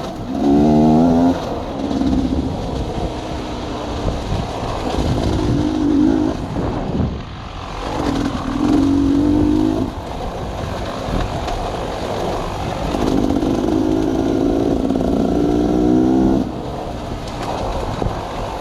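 Sawmill machinery and its engine running, with a pitched whine that comes and goes several times.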